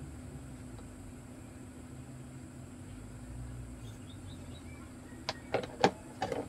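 A steady low hum, then near the end a quick run of five or so sharp knocks and clatters, one louder than the rest, as the plastic instrument-cluster housing is turned over and knocks against the wooden bench.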